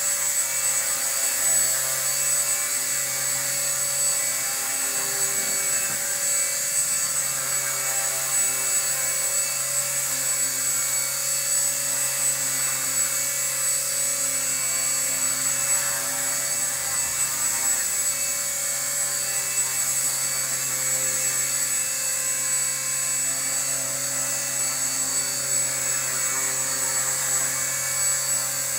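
Align T-Rex 250 DFC Pro electric RC helicopter hovering: a steady high motor whine over the buzz of its rotor blades, holding an even pitch with only slight wavers.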